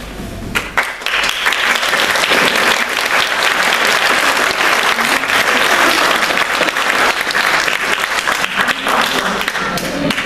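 Audience applauding: a few separate claps about half a second in, then dense clapping that dies away just before the end.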